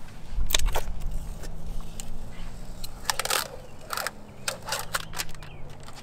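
Fingernails picking at and peeling a paper sticker off the centre of an alloy wheel: a few sharp scratches and clicks, with a longer tearing rasp about three seconds in. A low, steady vehicle-engine hum runs underneath and fades near the end.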